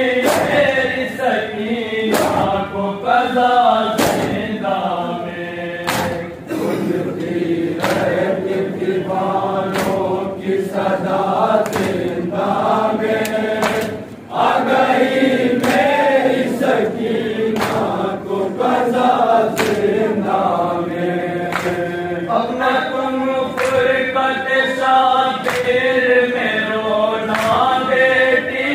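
Male voices chanting a nauha (Shia lament) together, led on a microphone, with the mourners' hands striking their chests in matam about once a second.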